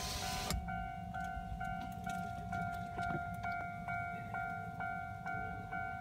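Japanese railway level-crossing warning bell sounding its electronic ding-ding about twice a second, with the barriers down. A short hiss stops about half a second in, before the bell comes through clearly.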